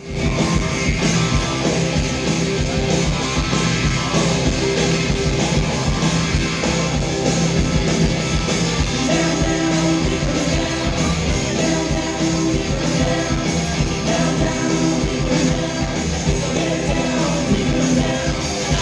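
Live rock and roll band playing loud and steady through a stage PA: electric guitar, bass guitar and drums, heard from among the audience.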